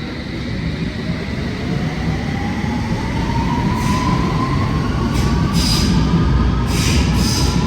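London Underground S8 Stock train pulling away and accelerating: the traction motors whine, rising steadily in pitch, over a low rumble that grows louder. Several brief high-pitched squeals come from the wheels in the second half.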